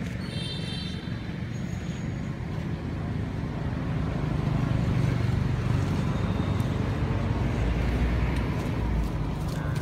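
Steady low rumble of a nearby motor vehicle engine, growing a little louder about four seconds in, with a brief high chirp about half a second in.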